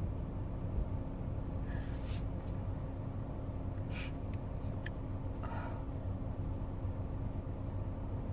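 Steady low hum inside a car's cabin, with a few short sharp inhales and sniffs at about two, four and five and a half seconds as a sneeze builds but doesn't come.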